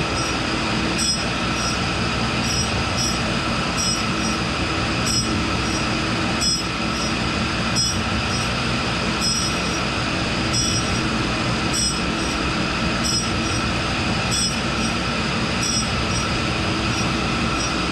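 1942 Cincinnati No. 2 tool and cutter grinder running, its wheel slowly grinding a hardened steel chuck key: a steady high ringing hiss with a faint regular pulse about every second and a quarter as the work passes the wheel.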